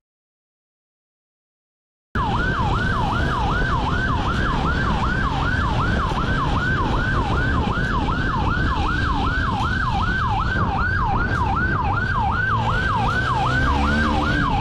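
Police motorcycle siren in a fast yelp, about three sweeps a second, each falling from high to low, over the wind and road noise of the moving motorcycle. It cuts in abruptly about two seconds in, after dead silence.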